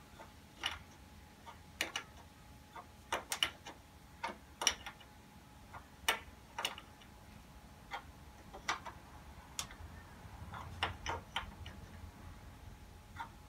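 Scattered sharp clicks and taps, some in quick clusters, from hands working at the oil filter on a ride-on mower's engine as the new filter is screwed on. A faint steady hum runs underneath.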